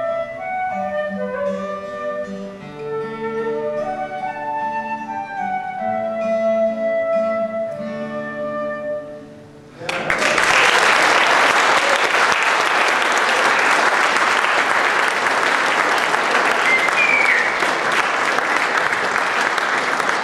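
Concert flute playing a melody over acoustic guitar accompaniment, the piece ending a little under halfway through. The audience then applauds, loud and sustained.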